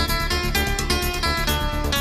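Background music: plucked guitar notes over a steady pulsing beat.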